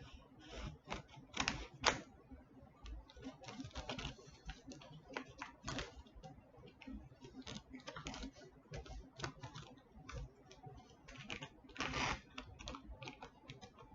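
Packaging being handled while a shipping box is unpacked: irregular rustling, crinkling and clicking of cardboard and wrapping.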